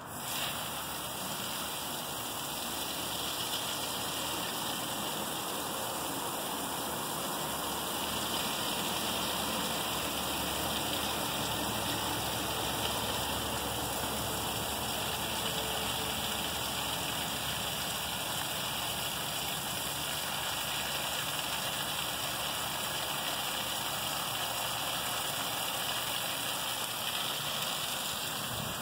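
Water running steadily from a garden hose and pouring into a fountain basin.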